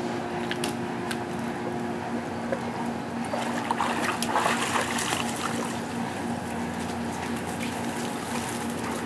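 Pool water splashing and trickling as a golden retriever swims to the edge and clambers out, loudest about four seconds in, over a steady low hum.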